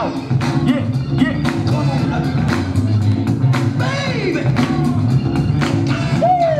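Loud dance music with a steady drum beat and a bass line, as played for breakdancing; notes slide down in pitch twice, about four seconds in and near the end.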